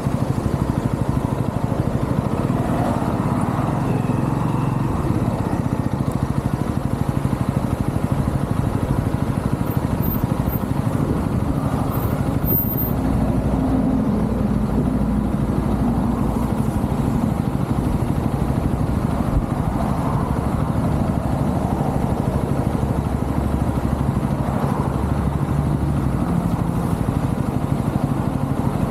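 A UM Renegade Commando 125's single-cylinder 125 cc engine running steadily while the bike is ridden, its note shifting slightly in pitch a few times.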